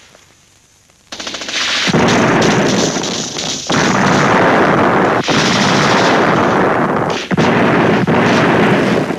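Battle sound of heavy automatic gunfire: a rapid string of shots starts about a second in and grows into a dense, continuous barrage with a few brief breaks.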